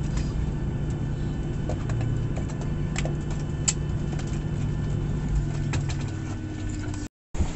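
Steady hum inside the cabin of a parked Boeing 737-800, with scattered clicks and knocks. It cuts off abruptly near the end.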